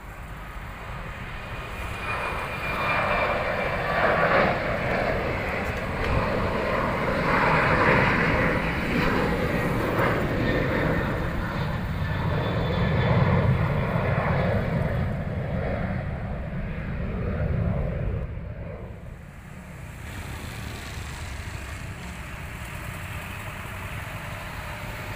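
Airliner's jet engines at takeoff thrust as the plane departs and climbs away. A loud roar builds over the first couple of seconds and turns to a deep rumble about halfway through. It falls off sharply about nineteen seconds in, leaving a lower steady rumble.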